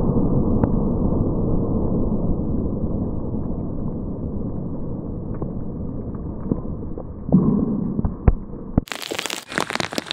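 Low, muffled rumble of an explosive blast against a security-filmed glass pane, fading slowly, with a thump and a sharp crack near the end. About nine seconds in it gives way suddenly to a crackling, pattering noise.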